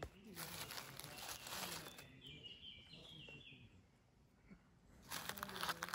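Dry leaf litter and grass rustling and crackling as a porcino mushroom is grasped and pulled from the forest floor, in two bouts, one early and one near the end. In between, a bird sings a short series of high chirps.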